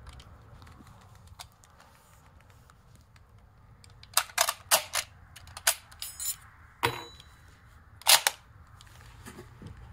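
A Lee-Enfield No. 1 Mk III rifle being loaded from a .303 British charger whose rounds are stacked with each rim in front of the last. About four seconds in comes a run of sharp metallic clicks and snaps as the cartridges are thumbed down into the magazine, with a short rattle in the middle. The loudest click, near the end, is the bolt closing.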